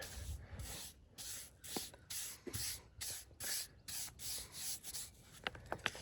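Quick, even rubbing strokes, about three a second, with a few sharp clicks near the end.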